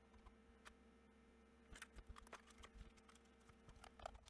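Near silence, broken by faint, scattered clicks and taps of the multimeter's plastic case parts being handled and fitted together, a little louder about four seconds in.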